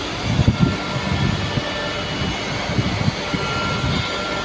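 Vibratory stress-relief exciter motor running at about 3,100 rpm while clamped to a large welded steel ring, shaking the weldment to relieve its residual welding stress. It makes a steady mechanical drone with an irregular low rattle, strongest about half a second in.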